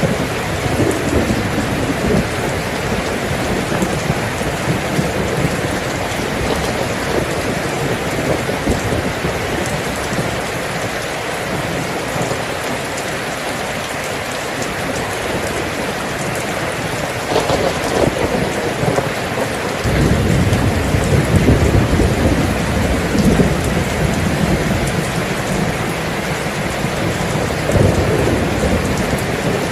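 Steady rain falling, with a low rumble of thunder that comes in about two-thirds of the way through and carries on to the end.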